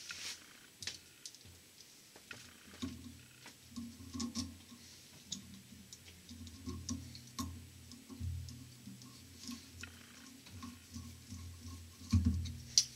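Light, irregular clicks and ticks of a screwdriver and small screw being worked into the center support plate of a Delco-Remy starter, over a low steady hum.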